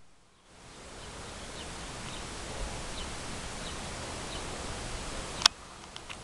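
Backyard outdoor ambience: a steady hiss with faint short chirps repeating about every two-thirds of a second. A single sharp click comes about five seconds in.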